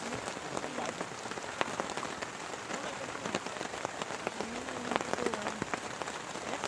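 Heavy rain falling steadily, with many individual drops striking sharply close by.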